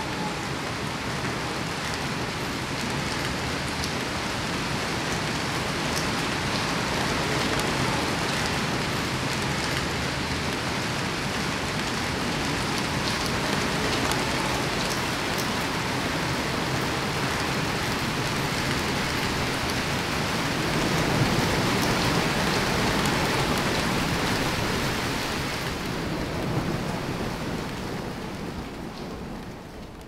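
Steady rain falling on foliage and surfaces, fading out over the last few seconds.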